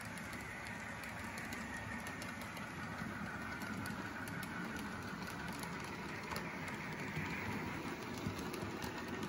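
HO scale model freight train running along the track behind a diesel locomotive: a steady running hum with faint scattered clicks of the wheels over the rails and turnouts.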